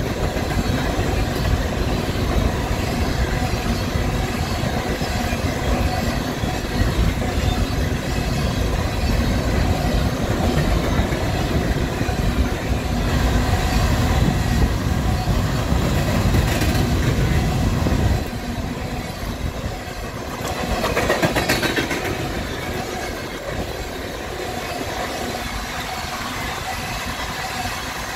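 Freight train of coal gondola cars rolling past close by: a steady, loud rumble of steel wheels on the rails that drops off sharply about two-thirds of the way through, followed a couple of seconds later by a short burst of higher-pitched noise before settling to a quieter rolling sound.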